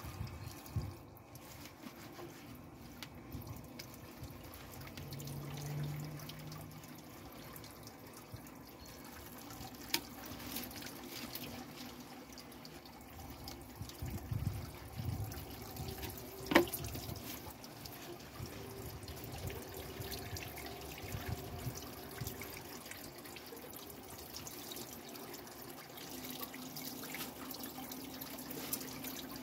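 Water running from a garden tap and splashing over garlic mustard leaves being washed by hand in a plastic basket. A single sharp knock about halfway through.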